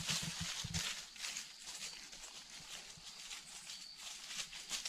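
Footsteps of goats and a walker rustling and crunching through dry fallen leaves and grass in an irregular patter, busiest in the first second.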